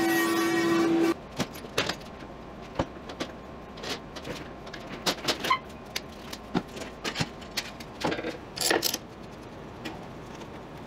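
A power tool runs with a steady, high hum that cuts off abruptly about a second in. Then come scattered clicks, taps and knocks, like tools and wood being handled on a bench.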